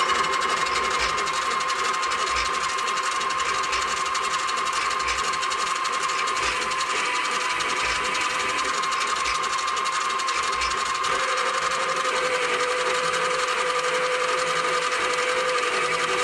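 Benchtop metal lathe running, its motor and spindle giving a steady whine.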